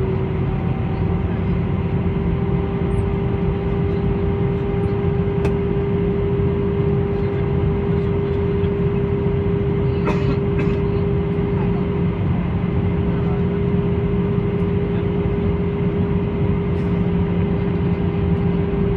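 Steady cabin noise of an Airbus A320-214 airliner in flight: a constant rumble of engines and airflow with a steady hum, and a couple of faint clicks.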